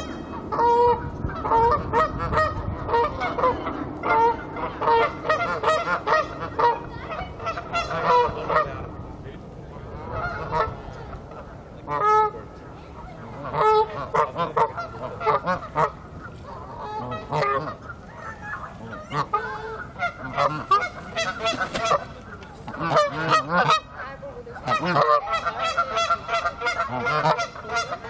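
Canada geese honking repeatedly, the calls coming in quick overlapping runs. The honking thins out for a while in the middle, then picks up again near the end.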